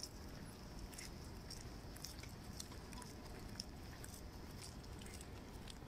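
Footsteps walking on a paved path, irregular soft steps, over a steady high trill of night insects in the grass.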